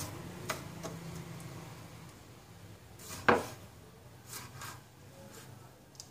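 Large kitchen knife slicing raw meat on a round wooden chopping board: a handful of separate knocks of the blade against the wood, the loudest about three seconds in. A low hum sits underneath in the first second or two.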